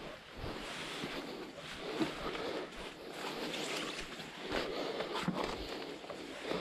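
Someone walking through overgrown vegetation: footsteps and leaves rustling as the walker brushes past, a steady noisy hiss with a few faint short scuffs.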